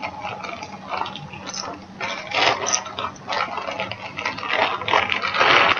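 Rustling and handling noise of cross-stitch fabric being folded and moved close to the microphone, in irregular bursts, louder about two and a half seconds in and again near the end.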